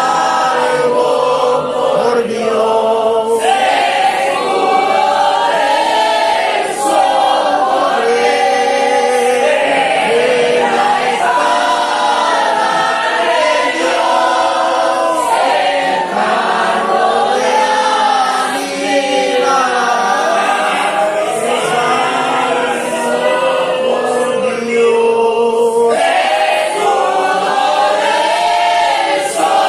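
A church congregation singing a hymn together, many voices in unison holding long sung notes.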